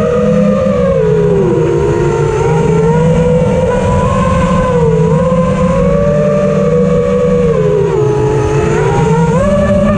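FPV quadcopter's brushless motors and propellers whining in flight, heard from the onboard camera. The pitch swings with throttle: it drops about a second and a half in and again around eight seconds, then climbs back.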